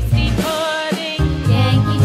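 Background music: a children's song with a sung melody over a low accompaniment.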